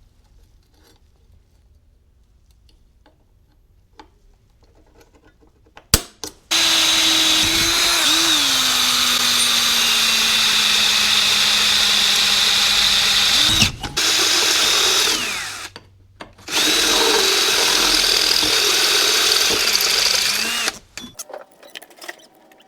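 Electric drill running in three long stretches, its motor pitch sagging as the bit bites, while drilling bolt holes to mount the catch can.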